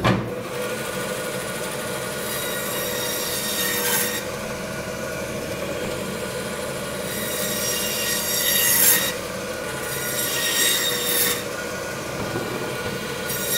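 Meat band saw running with a steady whine as its blade cuts through a bone-in, dry-aged beef T-bone section. The cutting swells into a harsh grinding screech four times as the meat is pushed through the blade.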